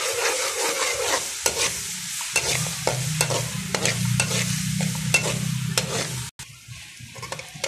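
Sliced onions sizzling in hot oil in an aluminium pan while a slotted metal spoon stirs them, scraping and clicking against the pan.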